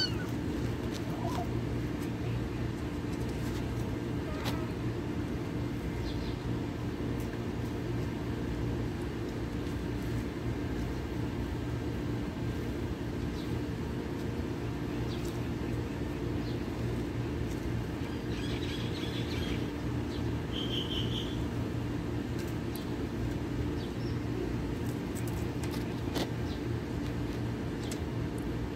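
Steady low mechanical hum, with two short bird chirps about two-thirds of the way through.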